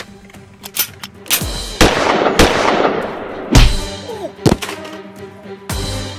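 Movie-style gunshot sound effects, about eight sharp shots at uneven spacing with the loudest about three and a half seconds in, over background music.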